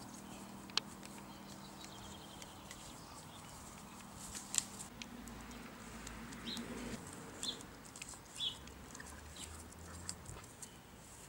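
A puppy gnawing and mouthing an apple: faint scattered crunches, clicks and rustles, the sharpest click about four and a half seconds in.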